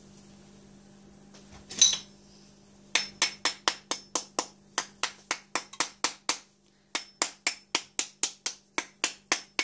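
Rapid, regular tapping on a hard plastic capsule-shaped bath bomb mold filled with packed mixture, about four sharp taps a second, starting about three seconds in with a brief pause midway. One louder knock comes just before the tapping starts.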